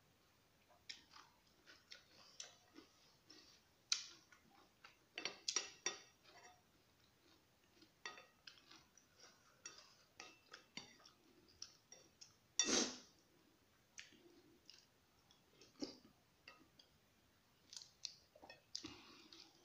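Close-up eating sounds: chewing, with chopsticks and a spoon clicking against a bowl of noodle soup. Many small scattered clicks, the loudest about 13 seconds in.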